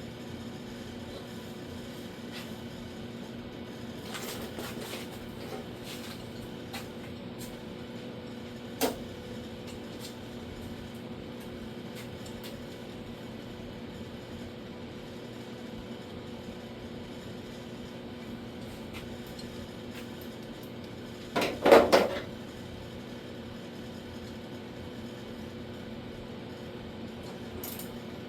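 Steady hum with a few light metal clicks, then a quick run of four or five sharp hammer knocks on the steel door skin a little past the middle, the loudest sound.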